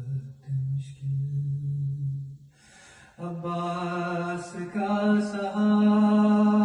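A man's voice chanting a noha, a Shia lament, unaccompanied, in long drawn-out notes. About two and a half seconds in it breaks off briefly, then comes back on a higher pitch and grows louder.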